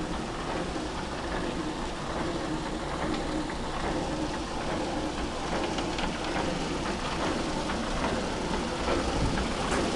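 Steady splashing and rushing water with a continuous machine din from jig concentrators running in a tin ore gravity-separation plant, with faint scattered ticks.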